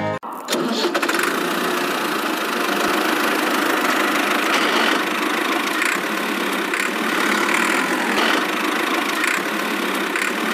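A small motor running steadily with a continuous mechanical buzz, cutting in abruptly just after the start.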